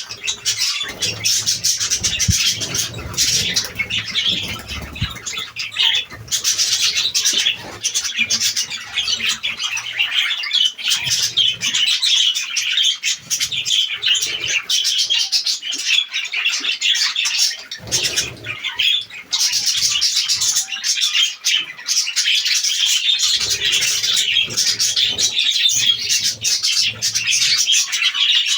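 A flock of pet parrots chattering and chirping continuously, many rapid high calls overlapping, with brief lulls.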